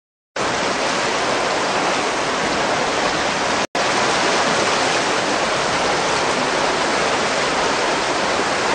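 A loud, steady rushing hiss of noise with no speech or tones in it. It starts abruptly, drops out for a split second near the middle, and cuts off abruptly.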